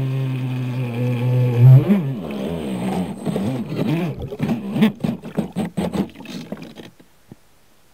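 Small brushless electric motor of a twin-hull RC boat whining steadily at speed, then its pitch wavering up and down amid water splashing, dying away about seven seconds in.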